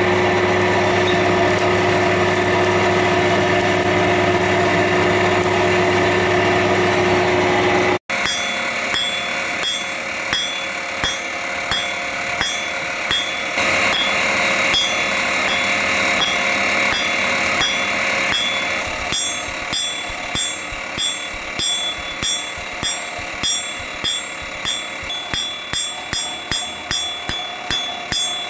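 Forge blower running steadily under the coal fire for about eight seconds. Then a hammer strikes a red-hot steel bar on an anvil in a steady rhythm, each blow with a high ring, at first about three blows every two seconds and quickening to over two a second toward the end.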